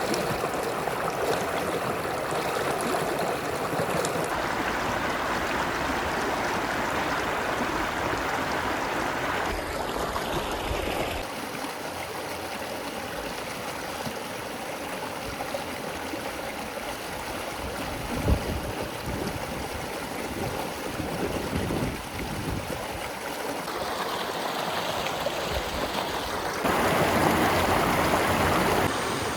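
Creek water running over rocks, a steady rushing flow whose level jumps abruptly a few times, with one brief knock about two-thirds of the way through.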